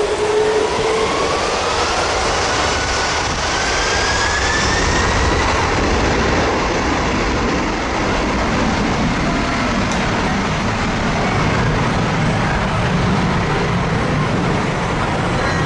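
Boeing 747 jet engines spooling up to takeoff thrust: a loud, steady roar of jet blast, with a turbine whine rising in pitch over the first five seconds.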